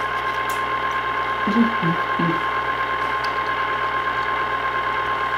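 Motor of a tabletop chocolate fountain pumping cheese sauce, running with a steady mechanical whir. It carries a constant tone and a fast, even pulsing.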